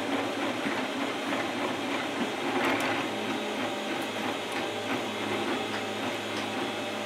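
Desktop FDM 3D printer printing: its stepper motors whir and buzz in shifting pitches as the print head moves.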